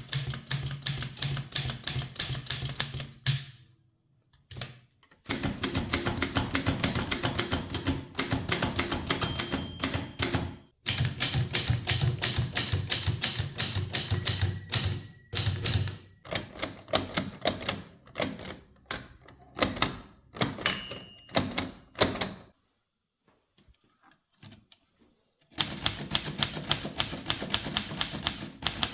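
Manual typewriters being typed on, their typebars striking the platen in rapid runs of sharp clacks, several different machines in turn with short breaks between them. About two-thirds of the way through a short ring sounds, the little bell that warns of the right margin.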